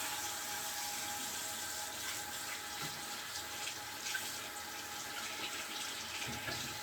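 Tap water running steadily into a bathroom sink, turned on just before.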